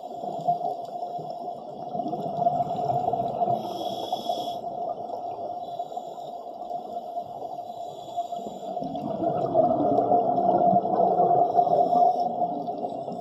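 Muffled underwater sound of scuba divers breathing through their regulators: exhaled bubbles gurgling over a steady hum, with short hisses every few seconds. The bubbling grows louder from about nine seconds in, for about three seconds.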